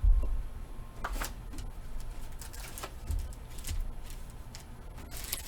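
Handling noise: a thump at the start, then scattered light clicks, taps and rustles.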